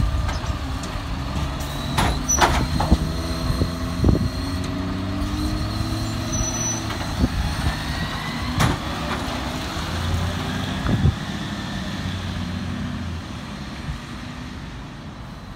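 Side-loading garbage truck emptying a wheelie bin with its automated arm: the diesel engine runs with a shifting note while the arm works, and the bin knocks and clatters several times. Over the last few seconds the truck pulls away and its sound fades.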